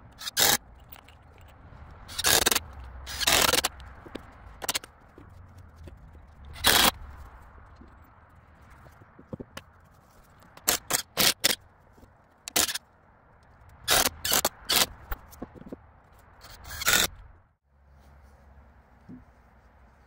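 Cordless drill-driver driving screws into pine boards in a dozen or so short bursts, some in quick runs of two or three.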